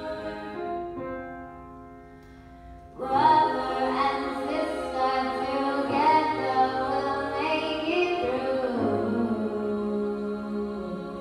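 Girls' a cappella group singing in close harmony. Soft held chords fade for the first three seconds, then the voices come in suddenly louder with a moving melody over sustained parts.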